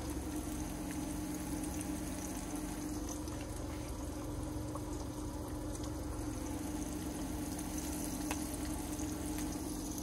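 Battered crappie fillets frying in hot peanut oil in a skillet, a steady sizzle and bubbling, with a low steady hum underneath.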